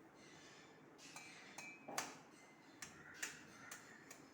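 A few faint taps and clinks of kitchenware being handled, the sharpest about two seconds in.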